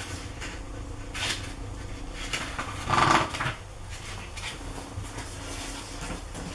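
A thin paperback picture book being opened and its pages leafed through: soft paper rustles and light knocks. About three seconds in comes a louder, short sound with a pitched tone.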